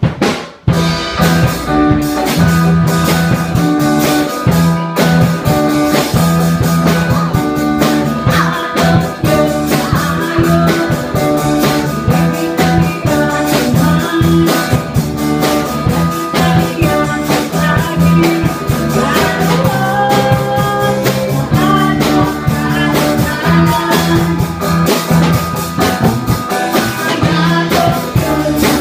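A small live band kicks in within the first second: drum kit, electric guitar and bass guitar played through small amplifiers, with a woman singing into a microphone.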